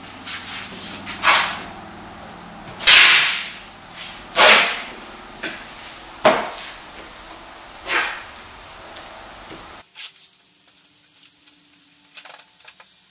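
Masking tape pulled off the roll in about five sharp tearing rasps, with newspaper rustling as it is pressed down. Near the end only soft paper crinkles and small clicks remain.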